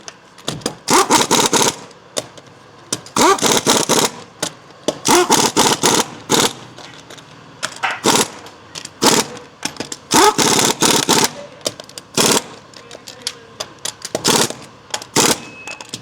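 Impact wrench tightening a car's wheel lug nuts, in a series of short bursts of hammering, one nut after another.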